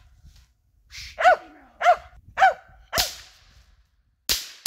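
Squirrel-hunting dog barking three times, short barks about half a second apart. Then a sharp crack about three seconds in and two more quick cracks near the end.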